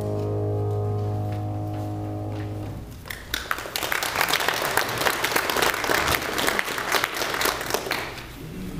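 A keyboard instrument holds a final chord that stops about three seconds in, followed by a congregation applauding for about five seconds.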